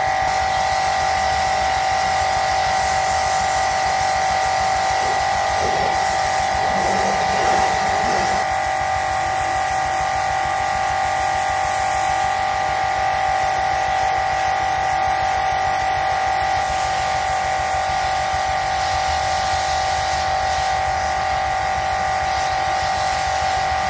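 Pressure washer running continuously: a steady whine over the hiss of its water jet.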